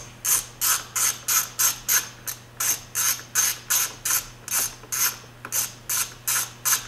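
Hand ratchet clicking in quick, even back-and-forth strokes, about three a second, as it backs out a long T25 screw holding a steering-wheel airbag.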